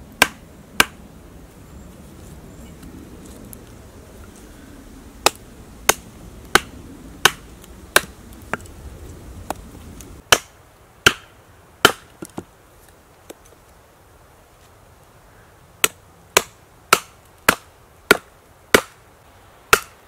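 Sharp knocks of a heavy full-tang fixed-blade bushcraft knife, the Survival Lilly APO-1, striking into a stick on a tree stump. The strokes come in runs about one every half to three-quarters of a second: two at the start, a run from about five seconds in, and another from about sixteen seconds to the end.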